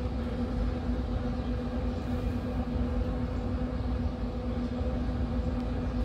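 Pit Boss pellet smoker running with a steady, even hum from its fan, over a low rumble.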